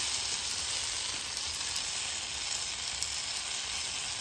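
Corn tortillas sizzling steadily on a hot flat-top griddle, frying in beef tallow and the grease skimmed from the birria consommé.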